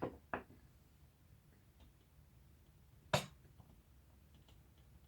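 Sharp clicks and knocks of chair parts and hardware being handled during assembly: two at the start, a louder single knock about three seconds in, and a few faint ticks.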